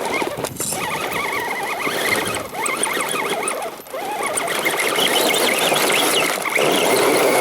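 Electric motor and gear drivetrain of a 1/10-scale Axial SCX10 RC crawler whining as it crawls, the pitch rising and falling with the throttle and easing off briefly partway through.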